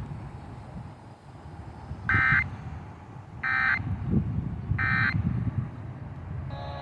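Emergency Alert System end-of-message code on NOAA Weather Radio: three short, shrill, buzzy data bursts about a second and a half apart, heard over the radio's low rumbling background noise.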